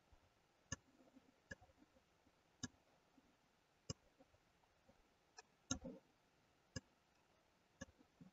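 Sharp clicks of a computer mouse and keyboard, about eight to ten spread unevenly, with a pair close together just past the middle, against near silence.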